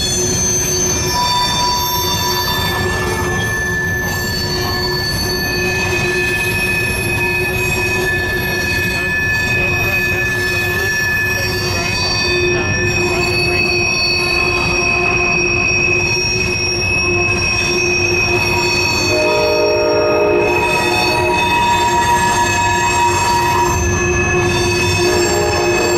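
Freight train of steel covered hopper grain cars rolling past at steady speed, its wheels squealing in several sustained high tones over a continuous rumble. Lower squeals join in about two-thirds of the way through.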